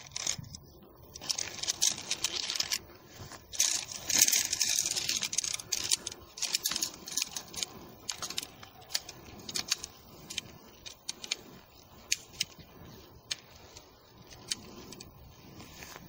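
Aluminium tent pole segments clinking and clicking against each other as they are joined into poles, with rustling around two and four seconds in.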